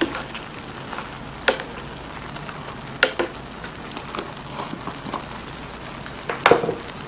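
Shrimp sauce simmering and sizzling in a frying pan. A metal spoon clinks sharply against the pan a few times: once at about a second and a half, twice near three seconds, and once near the end.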